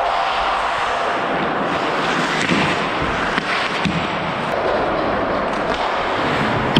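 Ice hockey skates scraping and carving on the ice, with sticks and puck clacking a few times.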